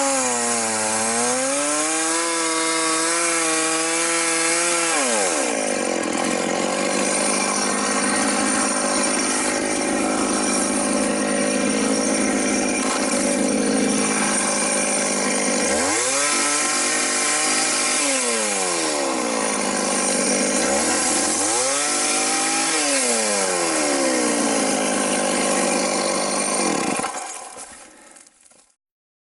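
Chainsaw ripping a log lengthwise for planks. The engine pitch swings down and up, then holds steady under load through a long stretch of cutting. It rises and falls twice more before dying away near the end.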